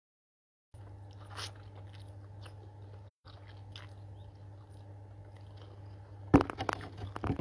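A person chewing and slurping a mouthful of instant noodles eaten with chopsticks, with a cluster of louder sharp noises near the end. A steady low hum runs underneath, and the sound cuts out completely twice, briefly.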